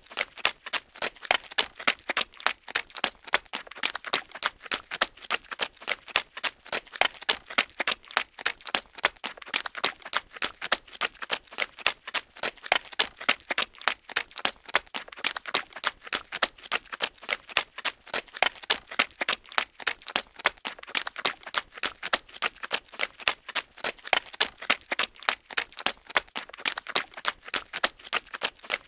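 Footsteps running through wet mud: a steady, even run of short squelching steps, a few a second.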